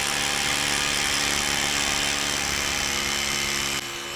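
Rotary hammer drill boring into a concrete foundation beam, running steadily with a motor whine over the hammering. It eases off near the end.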